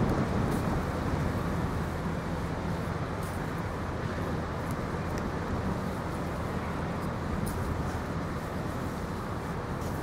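Steady low engine rumble from distant motor traffic, mixed with wind noise, with a few faint clicks from handling close to the microphone.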